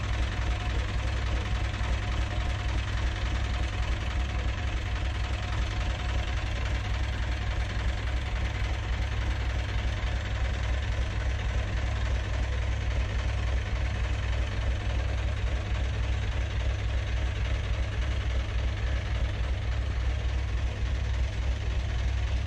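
Narrowboat diesel engine running steadily at low revs, a constant low throb.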